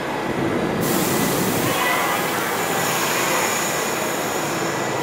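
R68 subway train standing at a station platform with its doors open, its equipment rumbling steadily. A loud hiss starts suddenly about a second in and cuts off abruptly at the end.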